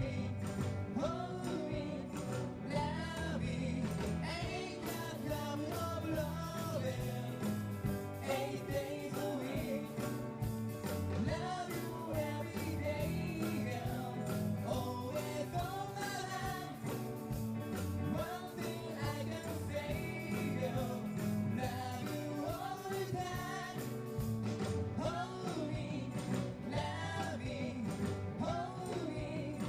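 A band playing a song live, with a singer over the instruments.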